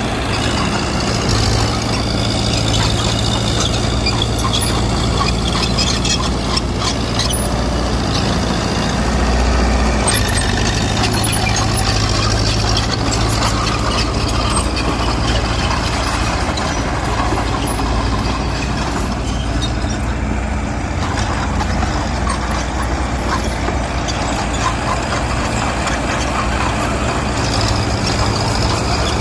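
Mitsubishi BD2G bulldozer's diesel engine running steadily under load while it pushes soil, with scattered metallic clanks. The engine note shifts about ten seconds in.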